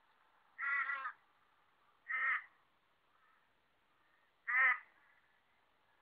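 Torresian crow calling, three caws spaced a second or two apart, the first longer and wavering.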